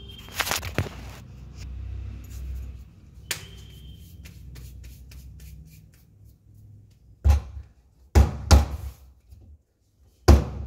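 Rustling handling noise as the phone is moved, then four short dull thumps on the kitchen counter as a ball of dough is pressed and patted by hand.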